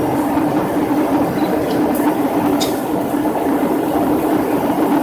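Steady cabin roar of an airliner's engines and airflow, heard inside the passenger cabin on descent, with a steady low hum running through it. A couple of faint clicks come about two seconds in.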